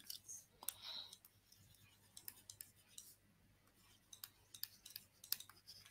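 Faint, irregular clicks and taps of handwriting input on a computer as a word is written out on a digital whiteboard, over a low steady hum.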